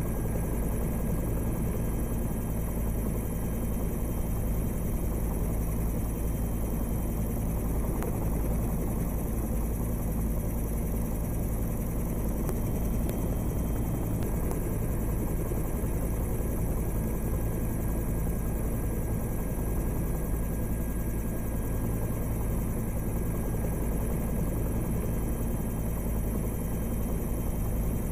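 Steady drone of the aircraft carrying the camera, its engine and rotor noise heard from on board, with a constant low hum and no change in pitch.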